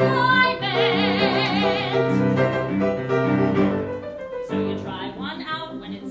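Musical-theatre song: a female voice holds a note with vibrato over piano accompaniment. Around two seconds in the voice drops out, leaving the piano chords alone for a couple of seconds before the singing comes back.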